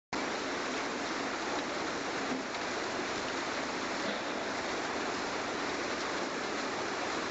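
Wet 5–40 mm recycled aggregate pouring off a conveyor belt's head drum into a feed hopper: a steady, rushing, water-like noise that starts abruptly.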